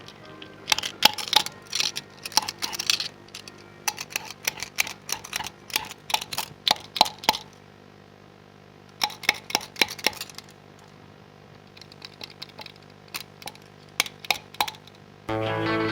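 Hollow broccoli stem tapped like a cowbell, in quick irregular runs of sharp, clinking taps, with a sparser, quieter stretch after about seven seconds. Just before the end, music starts abruptly.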